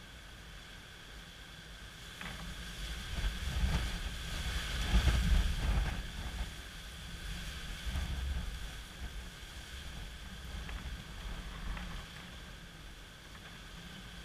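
Gusty wind from an approaching hurricane buffeting the microphone in rumbling surges, strongest about four to six seconds in and again around eight seconds, over a steady hiss of rain.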